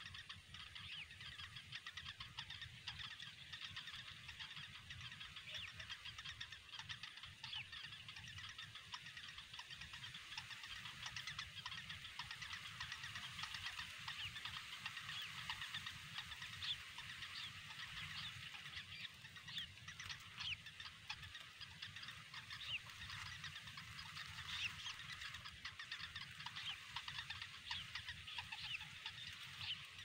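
Bittern nestlings begging: a dense, fast stream of short high-pitched chirps over a steady low hum.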